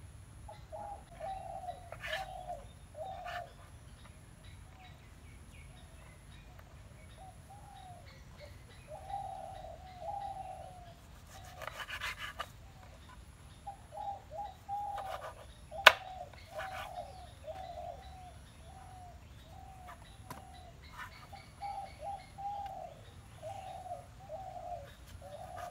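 A bird calling over and over in runs of short mid-pitched notes. Now and then a knife knocks on the wooden cutting board as raw tuna is cut, with one sharp, loud knock about two-thirds of the way through.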